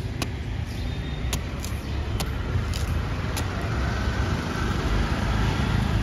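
A curved sickle-knife chopping into the tough husk of palmyra palm fruit (ice apple), with about six sharp strikes in the first three and a half seconds, over a steady low rumble of road traffic.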